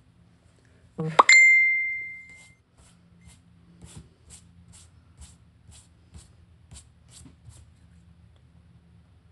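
A single bright ding, a sharp strike that rings out and fades over about a second, followed by a run of faint, evenly spaced ticks, about two or three a second.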